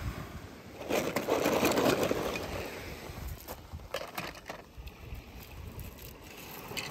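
Small die-cast toy cars being handled: rustling and scraping, loudest about a second in, with scattered sharp clicks.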